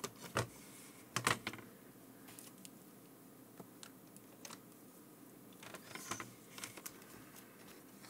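Scattered sharp clicks and light knocks of plastic parts being handled: a cable connector unplugged from an opened HME drive-thru intercom base station and its housing moved. The sharpest clicks come about half a second and just over a second in, with fainter ones later.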